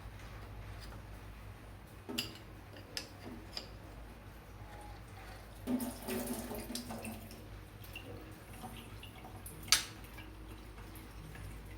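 Work at a dripping sink tap: scattered metallic clicks and knocks with water dripping, the sharpest click coming near the end.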